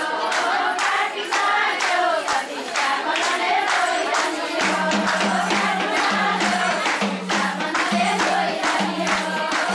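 A group of women singing a Nepali Teej folk song together, backed by a madal hand drum and rhythmic hand clapping on a steady beat. A repeated low drum note joins about halfway through.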